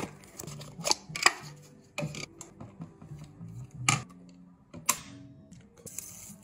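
Sharp clicks and knocks from handling 16mm film packaging and a Bolex H16 camera body as its side door is taken off, about six distinct clicks with a brief rustle near the end. Quiet background music runs underneath.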